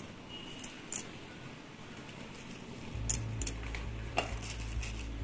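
Hands placing a lettuce leaf on a burger on a wooden chopping board, with a few light taps and clicks. A low steady hum comes in about three seconds in.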